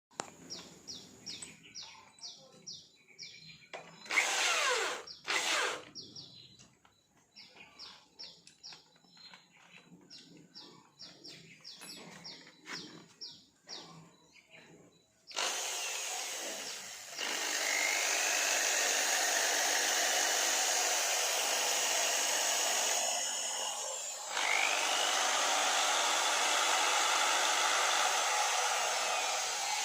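Small metal clicks and knocks from hand work on small parts, then a small power tool, like a drill, starts about halfway through and runs steadily, easing off for a moment near the end.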